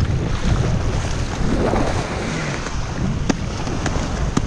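Wind buffeting the microphone over small surf waves washing in the shallows, with two sharp clicks near the end.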